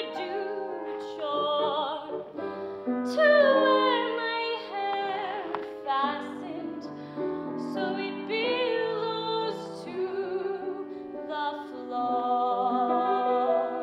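A woman singing a musical-theatre song solo in a high, bright voice with vibrato, over piano accompaniment.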